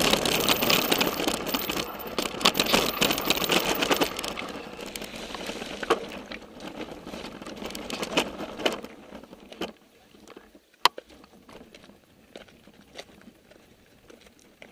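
Mountain bike riding down a rocky, loose-gravel downhill trail: tyres and frame rattling over stones with many sharp knocks. The noise eases and drops away about nine to ten seconds in as the bike slows to a stop, followed by one sharp click a second or so later.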